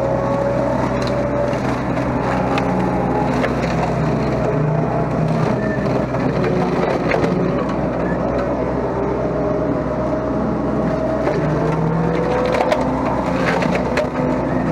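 Mini excavator running steadily while its home-built slasher (brush-cutter) attachment chops through thick brush, with repeated cracking and splintering of woody stems. A whine from the machine drifts up and down in pitch underneath.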